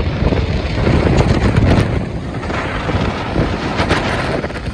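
Jet blast from a heavy airliner's engines at high thrust: a loud, deep, rumbling noise that surges and fluctuates, with wind buffeting the microphone.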